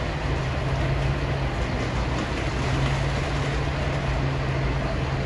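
Heavy truck engine running steadily under the house being moved, a continuous low drone.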